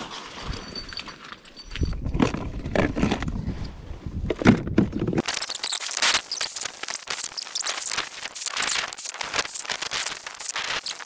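Low rustling and bumping, then from about five seconds in a dense, gritty crunching and crackling as a battery-powered StrikeMaster lithium ice auger bores through lake ice.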